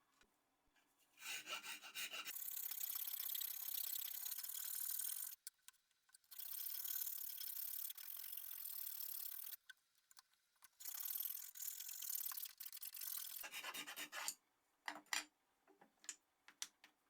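Hand abrasion on the wrench's metal: scratchy rubbing in three long stretches of a few seconds each, followed by a few light clicks near the end.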